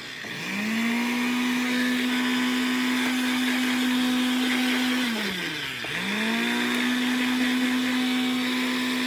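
Electric kitchen mixer grinder grinding tomatoes with added water, its motor spinning up to a steady whine. About five seconds in it winds down, the pitch falling, then spins back up to speed a second later. Water was added because too much tomato had stalled the machine.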